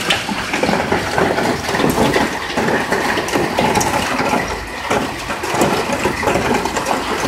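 Heavy hail coming down with rain: a dense, steady rushing hiss broken by many sharp clicks of hailstones striking.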